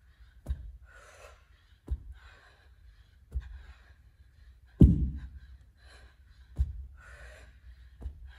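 Kettlebell touching down on an exercise mat with a thud at each deadlift rep, about every second and a half, six times, the loudest near the middle. Between the thuds come hard, gasping breaths from the lifter working through the set.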